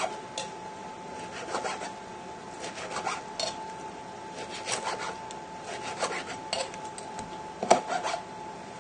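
Serrated knife sawing back and forth through a grilled pork chop, with irregular rasping strokes and light taps of the blade on a plastic chopping board as each thin slice is cut through.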